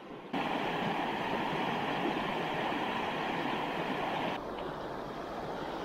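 Steady rushing of flowing river water, an even noise with no distinct events, which drops abruptly to a quieter level about four seconds in.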